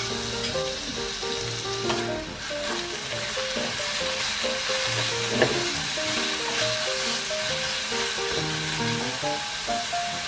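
Food frying in hot oil in a pan, a steady sizzle with a couple of light clicks, under background music with a simple melody.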